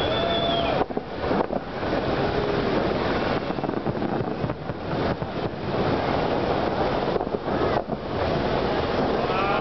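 Large fireworks display going off in a dense barrage: many shell bursts and crackles run together into one continuous rumble.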